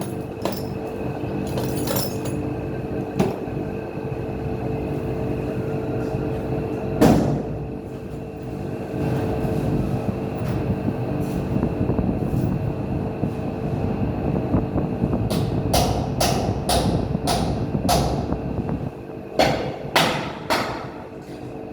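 Steady mechanical hum with a few sharp knocks, then a run of repeated knocks and bangs over the last several seconds.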